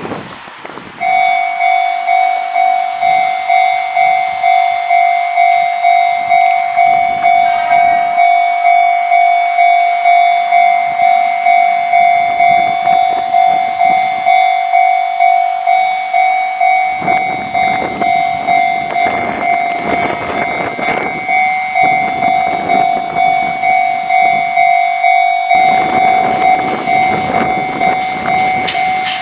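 Japanese railway level-crossing alarm starting about a second in and ringing steadily, about one and a half strokes a second. From about halfway through, a Fujikyu Railway train rumbles over the crossing beneath the bell.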